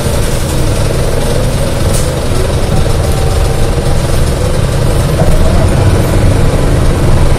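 Cabin noise of a 2018 Gillig Low Floor 29-foot CNG transit bus, its engine running with a steady low rumble.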